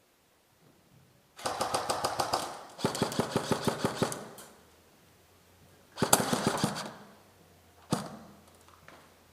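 Airsoft guns firing on full auto in quick strings of shots: three rapid bursts, then one single shot near the end.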